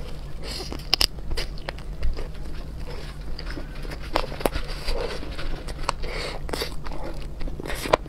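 A person eating seafood close to the microphone: biting, crunching and chewing, with irregular sharp cracks and clicks.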